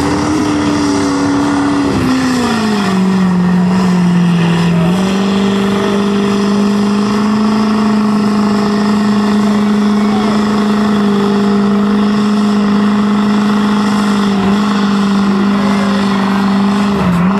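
Lifted Ford Super Duty mud truck's diesel engine held at high revs under load as it churns through deep mud. The pitch drops about two seconds in, rises a little a few seconds later, then holds steady with a short dip near the end.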